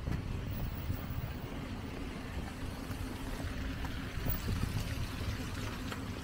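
Steady city street traffic noise, with the hiss of tyres on a wet, slushy road.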